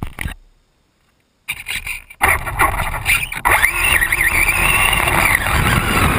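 Traxxas Bandit RC buggy with a brushless electric motor pulling away from rest, heard from on board: the motor whines and wavers in pitch while the tyres rumble on asphalt. It is near silent for the first second, and the sound comes in about a second and a half in, turning loud about two seconds in.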